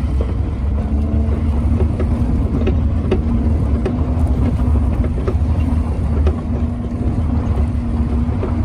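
Mahindra Thar's turbo-petrol four-cylinder engine running at a steady pitch while driving, with a deep rumble and occasional light knocks and rattles.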